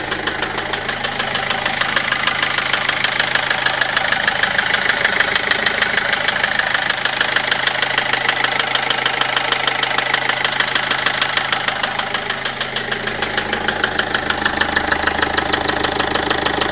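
Land Rover Freelander TD4 four-cylinder turbodiesel engine running, with a fast, regular knock through its note. The knock is the engine fault the owner is recording.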